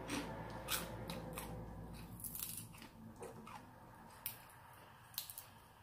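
Chewing a mouthful of crunchy shredded green papaya salad: a run of short, sharp crunches that thin out after about two and a half seconds, with a couple of isolated clicks near the end.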